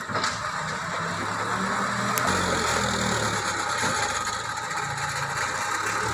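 Diesel engine of a JCB backhoe loader running, its note growing louder and heavier about two seconds in as the front bucket is driven into a pile of oil palm fruit bunches. There is a single sharp knock right at the start.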